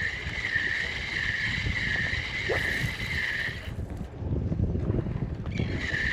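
Wind buffeting the microphone, with a warbling high tone over it that drops out for about two seconds past the middle.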